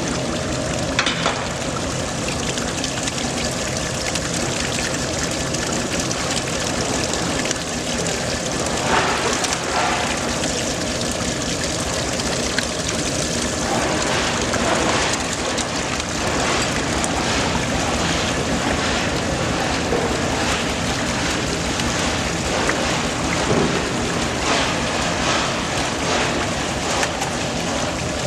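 Shaking table running: the drive head and motor hum steadily while washing water pours and rushes over the fiberglass deck, with faint irregular ticks in the rush.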